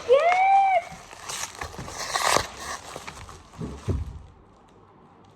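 Gift packaging being unwrapped: crinkling and tearing in a few short bursts, opening with a child's brief high exclamation.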